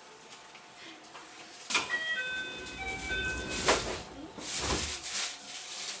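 The newly fitted door-closing chime of a JR West 221 series renewed train: after a knock, a short run of electronic chime notes at several pitches plays for about two seconds. The doors then slide shut with a rush and a thump.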